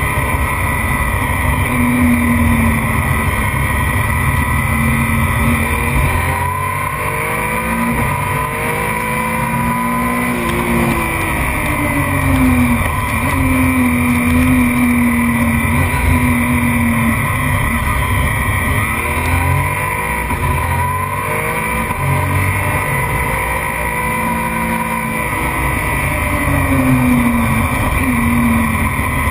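Racing motorcycle engine heard on board at speed under heavy wind rush. The engine pitch climbs and falls several times as the bike accelerates along the straights and slows for the corners.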